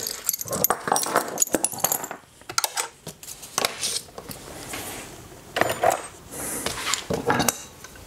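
Metal hand tools clinking and clattering on a workbench as they are picked up, set down and put away, in two flurries of sharp clicks and jingles, with a quieter stretch between them.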